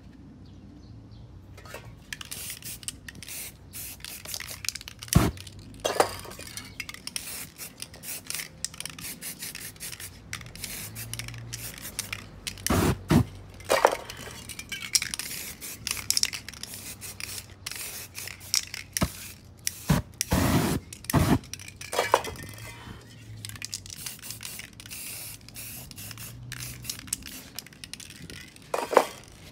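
Aerosol spray paint cans hissing in many short, irregular bursts as paint is sprayed over a stencil, with a few loud knocks among them.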